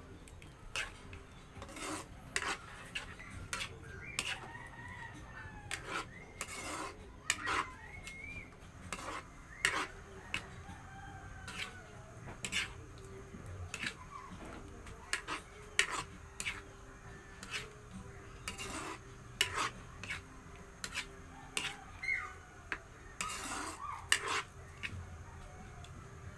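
A ladle stirring sauce in a metal frying pan, clinking and scraping against the pan in irregular knocks.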